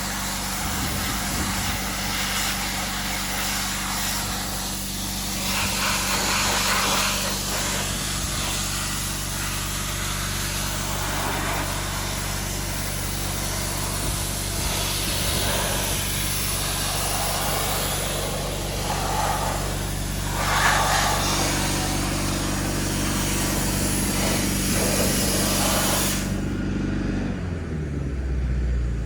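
Sandblaster blasting with a steady hiss of air and grit over an engine's steady low drone. About two and a half seconds before the end the blast cuts off suddenly, and a moment later the engine drops in pitch, leaving a low rumble.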